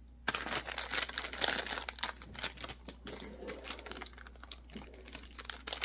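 Rapid, irregular clicking and crinkling of plastic packaging being handled.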